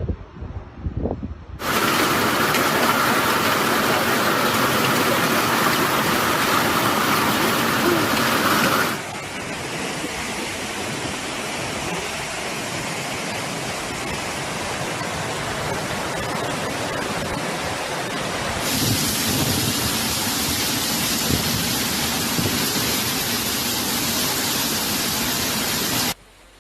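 Wind buffeting the microphone, then a loud, steady rush of water from flooding and heavy rain. It drops abruptly to a quieter rush about nine seconds in and jumps back up about nineteen seconds in, where separate clips are spliced together.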